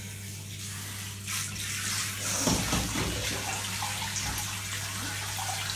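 Water running from a handheld shower sprayer and splashing into a filled bathtub as hair is rinsed, a steady hiss with a thump about two and a half seconds in.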